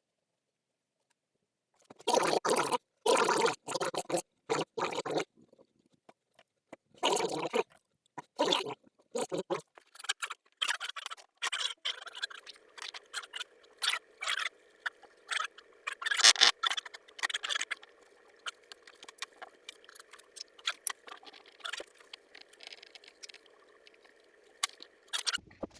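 Hands working a wood glue-up, glue being spread on wooden strips and the boards clamped: loud bursts of scraping and handling in two groups, then a long run of quieter scrapes and clicks over a faint steady hum.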